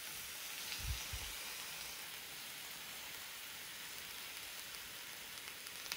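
Chicken tikka sizzling on a hot cast-iron sizzler platter, a faint steady hiss as lemon juice is squeezed over it, with a couple of soft low bumps about a second in.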